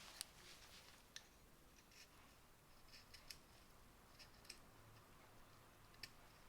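Carving knife shaving ginkgo wood: faint, short scraping cuts with a few sharp ticks of the blade.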